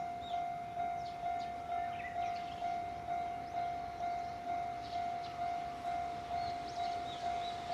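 Japanese railway level-crossing warning bell ringing, a single-pitched electronic clang repeating about twice a second.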